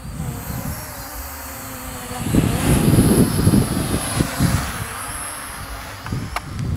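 Wind gusting against the microphone, strongest from about two to five seconds in, over the faint high whine of a small quadcopter drone's propellers.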